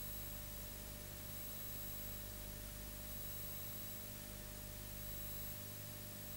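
Steady hiss with a low electrical hum and faint high whine, unchanging throughout; no other sound.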